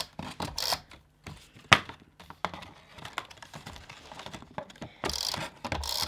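Double-sided tape runner drawn along the edge flaps of a card box in short rasping strokes, with small clicks and taps of the card and the runner against the mat.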